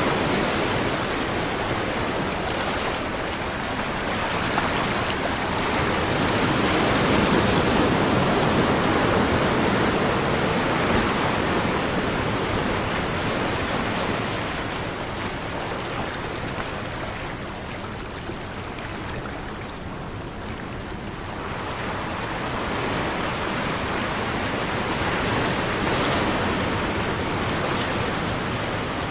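Ocean waves breaking in steady surf, the wash of water swelling and ebbing slowly over several seconds.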